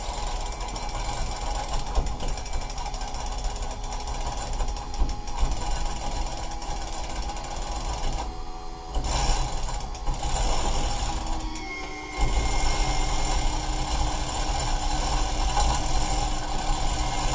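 Hand chain hoist being worked, its chain and ratchet pawl clicking as it takes the strain of lifting an outboard motor. About twelve seconds in a louder, steady hum joins in and carries on.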